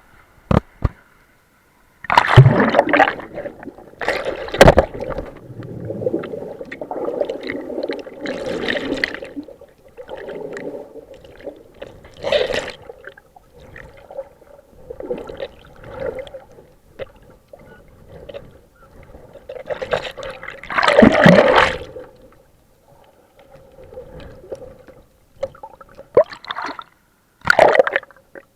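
Sea water heard underwater: irregular gurgling and sloshing surges, with a few sharp knocks.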